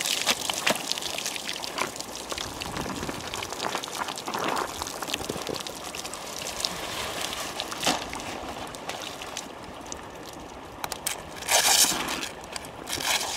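Water streaming and dripping off soaked clothing and gear onto the ice, with light splashes and scattered small clicks. A louder burst of noise comes near the end.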